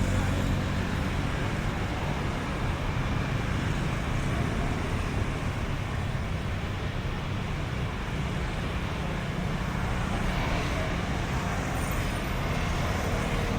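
Steady street traffic noise: a continuous wash of vehicles going by, with a low engine rumble underneath.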